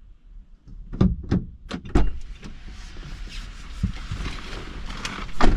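Clunks and knocks of a car door being opened and handled, then a steady rush of wind noise on the phone microphone in a snowstorm, and a loud thump of the door shutting near the end.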